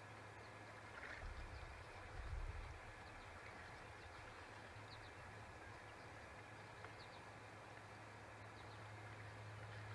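Faint shoreline ambience at dusk: a steady low hum, a few faint high chirps of small birds, and two brief low rumbles about one and two seconds in.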